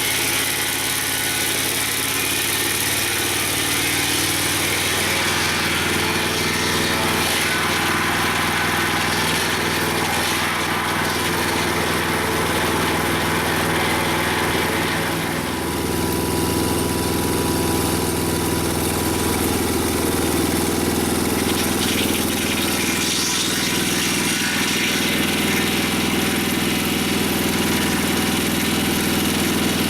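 Engine of a Mobile Dimension portable sawmill running steadily. About fifteen seconds in it dips briefly and settles at a different pitch.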